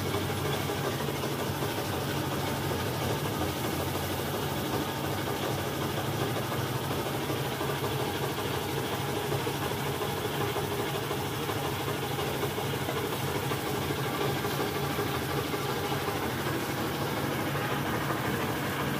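A motor or engine running steadily with a constant low hum that does not change.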